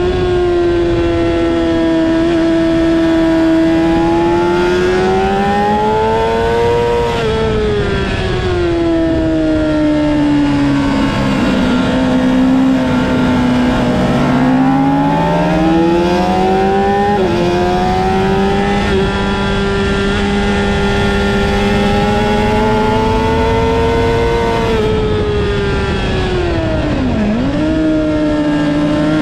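Honda CBR600RR (PC40) inline-four engine at high revs, heard on board the bike at speed over a steady rush of wind. The note climbs, falls away through a long stretch of braking and downshifts, then climbs hard out of the corner with a sudden step, holds high, and dips sharply near the end at a gear change before picking up again.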